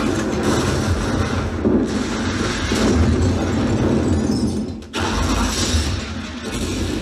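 Action-film soundtrack of crashes, explosions and score, played loudly over a Samsung HW-H450 soundbar and wireless subwoofer in the room. It drops briefly just before five seconds in, then comes back with a deep boom.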